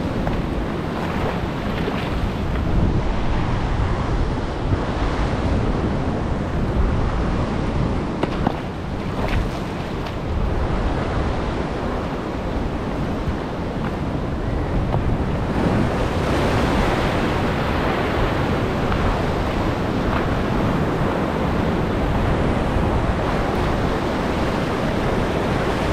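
Sea surf washing against a rocky shore, a continuous rush of water with wind buffeting the microphone. The surge swells louder about two-thirds of the way through.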